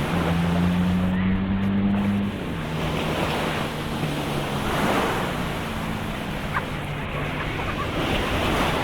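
Sea waves washing on the shore, with wind buffeting the microphone and a low droning hum underneath that is higher for the first two seconds, then drops and holds steady.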